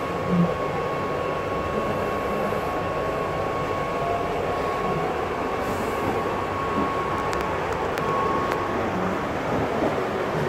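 Cabin noise of a KRL electric commuter train under way: a steady rumble of running and rail noise with a thin, steady whine over it.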